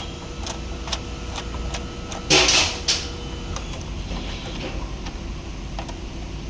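Scattered light clicks and knocks of metal parts and tools being handled, with one short, louder scraping burst a little over two seconds in, over a steady low hum.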